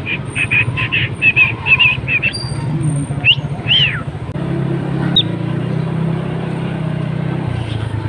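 Cockatiel chirping in a quick run of short notes for about two seconds, then giving two loud whistles that rise and fall, and one short note later. Under it is a low rumble of traffic, with a steady low engine hum from about halfway.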